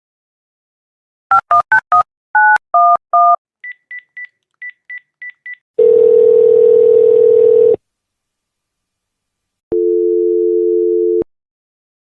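Telephone touch-tone (DTMF) dialing: seven two-tone keypad beeps, the first four quick and the last three a little longer. A run of seven faint, short high beeps follows, then two long steady line tones of about two and one and a half seconds.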